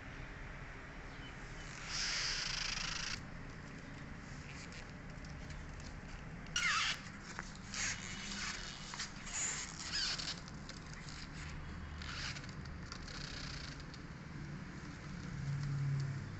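Kittens' claws raking and scuffling on carpet, in short scratchy bursts, several of them bunched together in the middle.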